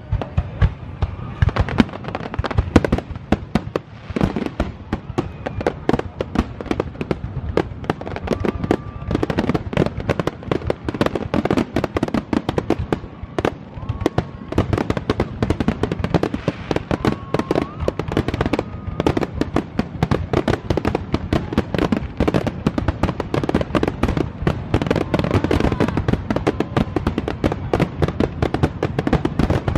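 Fireworks display finale: a dense, continuous barrage of aerial shell bursts and crackle, with bangs overlapping many times a second.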